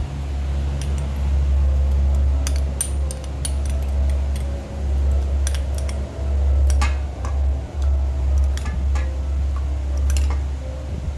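Metal spoon clinking and scraping against a cut-glass bowl as tamarind pulp is mashed in hot water, in scattered irregular clicks. A loud low rumble rises and dips underneath.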